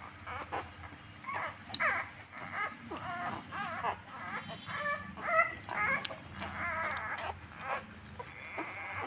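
Puppies whimpering and squeaking while nursing from their mother: many short, wavering high-pitched cries in quick succession.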